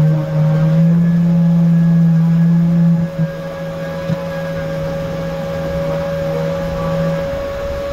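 Electric random orbital sander with a hose to a wet/dry vacuum, running steadily on a car's painted body panels: a steady low hum with a higher whine above it. It is louder for the first three seconds, then quieter. The low hum cuts off near the end while the higher whine continues.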